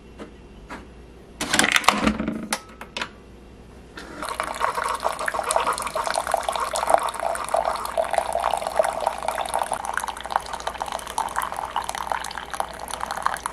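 Keurig single-serve coffee maker brewing: a few clicks and knocks, then from about four seconds in a steady stream of coffee pouring and splashing into a mug as it fills.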